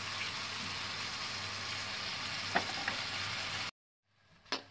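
Chopped tomatoes and spices frying in oil in a kadai, a steady sizzle while a metal spatula stirs them, with a couple of taps of the spatula against the pan. The tomatoes are cooking down until they soften. The sizzle cuts off suddenly near the end.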